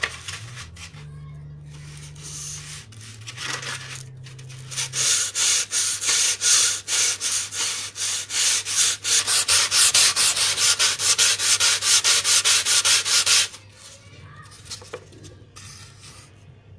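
Sandpaper rubbed back and forth along the edge of a thermocol (expanded polystyrene) foam wing section, rounding the edge. A few scattered rubs come first, then fast, even strokes of about four a second from about five seconds in, which stop abruptly a few seconds before the end.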